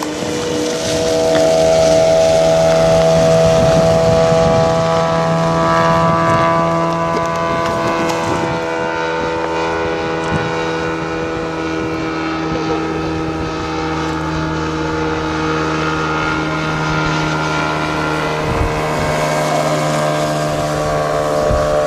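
Radio-controlled model airplane's engine and propeller running steadily in flight: a continuous drone with a stack of steady tones whose pitch drifts only slightly, loudest a few seconds in.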